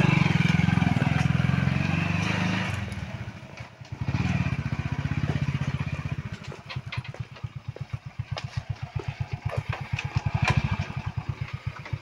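Small commuter motorcycle engine running as the bike is ridden up stone steps. It drops away around three seconds in and picks up again at four. From about six and a half seconds it settles into a slow, even chug.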